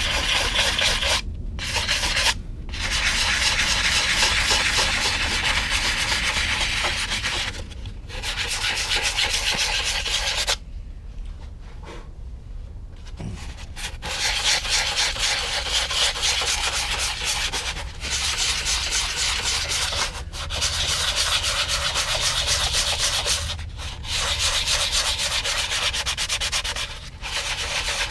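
Sandpaper being rubbed by hand over spackle filler on a balsa-and-plastic model airplane fuselage. It goes in runs of quick back-and-forth strokes with brief pauses, and a longer lull about a third of the way in.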